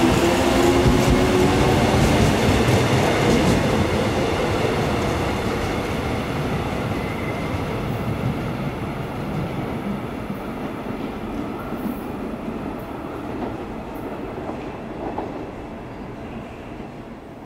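Seoul Metro Line 1 electric multiple unit pulling out and accelerating away. A rising motor whine fades out about a second in, then the rumble of its wheels on the track fades steadily as the train recedes.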